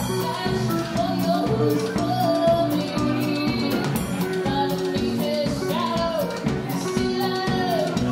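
A live country band playing: pedal steel guitar with gliding notes over a steady drum beat, bass and strummed archtop guitar.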